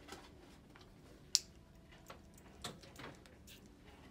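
Quiet shop-floor background with a few light clicks and taps; a sharp click about a second and a half in is the loudest, with a softer one near the end.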